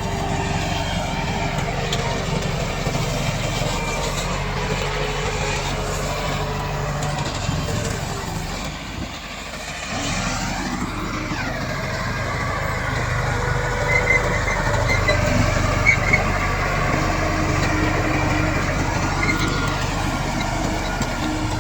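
Komatsu D68 crawler bulldozer's diesel engine running steadily under working load. About halfway through it dips briefly, then the revs rise and fall again. A few short high clinks come a little after.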